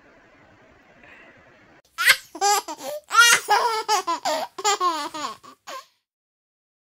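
Laughter: a high-pitched run of short ha-ha sounds, each dropping in pitch, starting about two seconds in and cutting off abruptly near the end.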